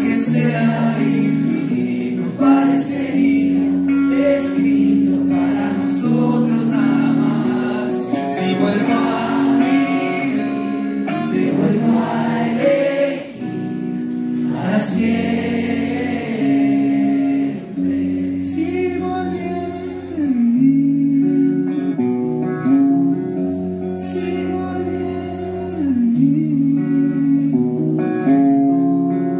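A male singer singing a song live into a microphone, accompanying himself on electric guitar.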